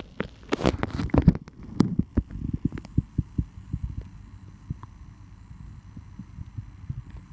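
Handling noise from a camera held under water: a cluster of loud, sharp knocks in the first two seconds as it is moved into place, then softer, irregular low thumps.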